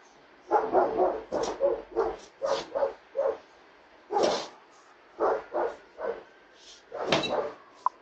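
A dog barking repeatedly in short, irregular runs of barks, picked up by a doorbell camera's microphone. A single sharp click sounds near the end.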